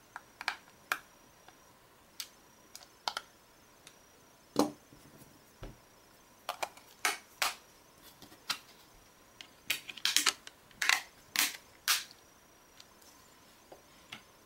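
Irregular sharp clicks and taps of a Samsung Galaxy Nexus being reassembled by hand: a small Phillips screwdriver at the frame screws and plastic parts and the battery being fitted. The loudest tap comes about a third of the way in, and a quick run of clicks follows later on.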